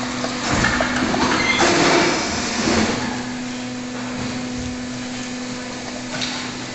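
Steady hum of brick-plant machinery, with irregular clattering and knocks for the first three seconds from a hand pallet truck rolling a rack of loaded steel pallets across the concrete floor, then only the hum.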